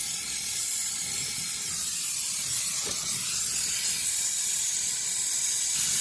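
Gas brazing torch hissing steadily as its flame is held on the refrigerator compressor's copper pipe joints to braze them shut.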